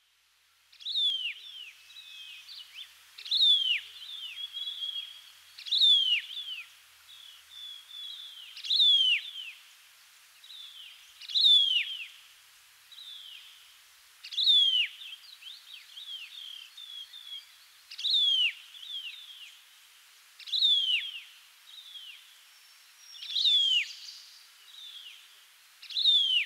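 A bird calling over and over in forest, about ten loud downward-sliding whistles every two and a half to three seconds, each trailed by a few quicker falling notes, with softer chirps in between. It fades in about a second in.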